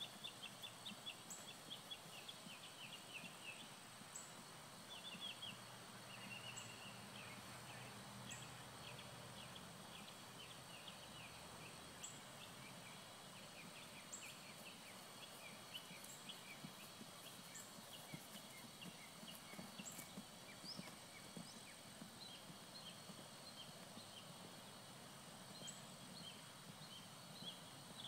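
Quiet outdoor ambience: faint soft hoofbeats of a ridden horse moving on grass, with many short high chirps scattered throughout.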